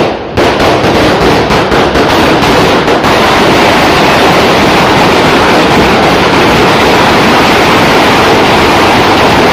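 Large ground firework fountain spewing sparks with a loud, steady rushing hiss that starts suddenly about half a second in, with crackling mixed in over the first few seconds.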